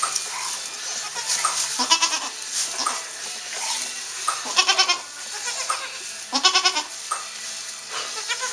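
Saanen/Alpine goats bleating: several short, quavering calls a second or two apart.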